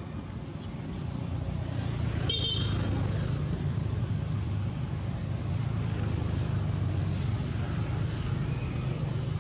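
A steady low engine rumble that grows a little louder about a second in, with a brief high-pitched chirp about two and a half seconds in.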